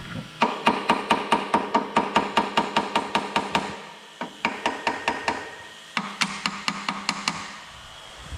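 Rapid metallic ticking or tapping with a ringing tone on each tick, about six a second, in three runs separated by short pauses.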